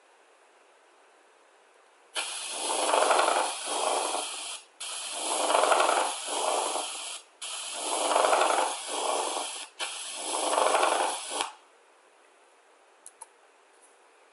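Recorded pleural friction rub: four breaths, each with a grating sound on breathing in and again on breathing out. This is the sign of inflamed pleural surfaces rubbing against each other.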